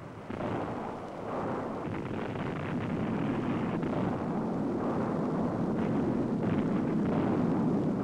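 Long rumble of a dynamite blast in a rock canyon as blasted rock and debris pour down the cliff, swelling over the first few seconds and then holding steady.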